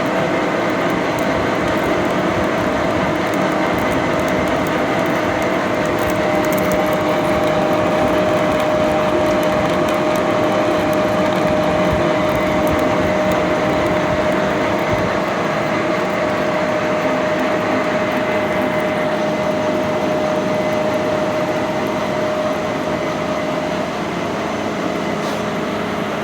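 Metal lathe running under power feed on its lead screw, single-point cutting a left-handed Acme thread: a steady machine noise with a constant whine that stops shortly before the end.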